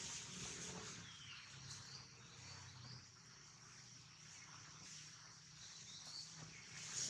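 Faint outdoor ambience: a steady high insect drone with a few faint short chirps.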